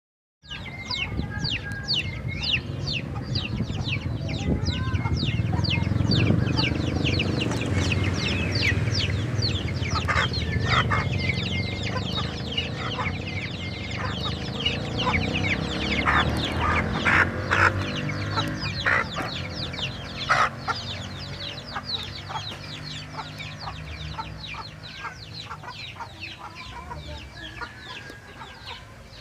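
A flock of village chickens clucking, over a constant run of short, high, falling peeps, with a few sharp knocks in the middle stretch.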